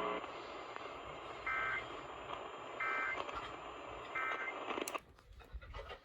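Three short warbling data bursts about 1.3 seconds apart over steady radio hiss: the EAS end-of-message tones that close a severe thunderstorm warning on a weather radio. About five seconds in, a click, and the hiss cuts off.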